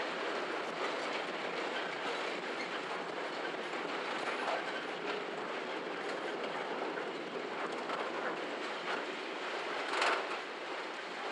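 Freight train of empty open box wagons rolling past: a steady rumble and rattle of wagon wheels on the rails, with occasional clacks over rail joints and one louder clank about ten seconds in.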